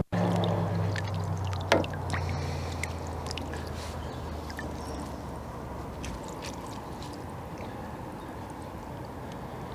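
Water sloshing and trickling around a landing net and keepnet being handled in the shallows, with one sharp click about two seconds in. A low engine drone fades out over the first six seconds.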